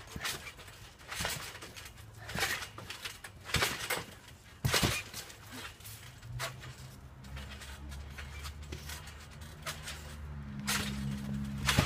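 Trampoline mat and springs thumping as two people bounce, about one landing a second. A steady low hum comes in about halfway through and runs on under the bounces.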